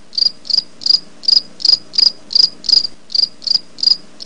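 Cricket chirping: short, high chirps repeated evenly, about three a second.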